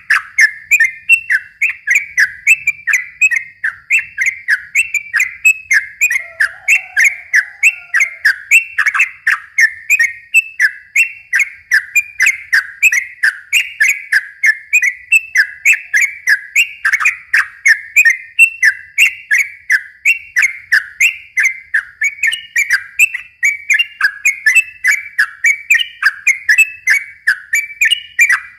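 Yellow-vented bulbul (trucukan) singing nonstop: a long, fast run of short falling whistled notes, about two to three a second, with no pauses.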